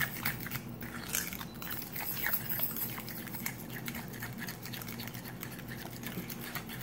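A metal fork stirring and mashing a wet mixture of ripe banana, oil and brown sugar in a glass bowl, with irregular light clicks and scrapes of the fork against the glass.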